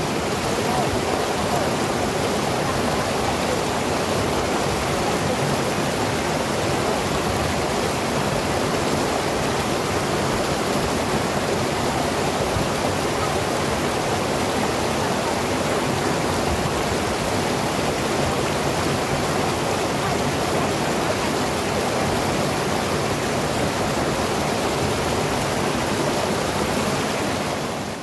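River rapids rushing over a rock ledge: a steady, loud wash of whitewater that fades out at the very end.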